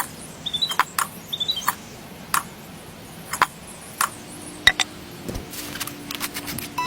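Light, sharp clicks and taps at irregular intervals, roughly one a second, with a few faint short high chirps in the first second and a half.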